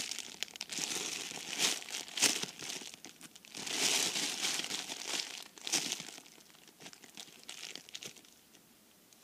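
Plastic packaging of squishy toys crinkling and rustling in irregular bursts as it is handled, dying away over the last few seconds.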